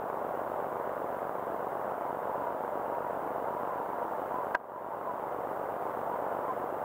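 Vaterra Ascender RC crawler's electric motor and geartrain whining steadily as the truck crawls slowly over wet rocks, with a single sharp click about four and a half seconds in.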